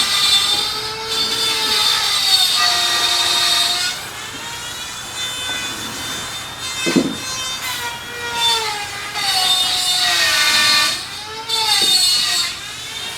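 Power tool on a construction site whining, its pitch dipping and rising as it works under load, louder at first and again near the end. A sharp knock about seven seconds in.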